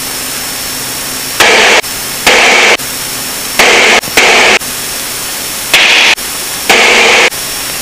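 Steady light-aircraft cabin noise heard through the headset intercom, broken by six short, loud bursts of static-like noise, each about half a second long, that switch on and off abruptly at irregular spacing.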